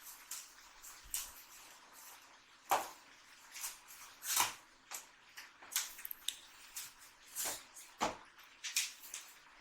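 A delivery parcel's packaging being handled and opened by hand: irregular crinkling, rustling and sharp little clicks, with a few louder crackles.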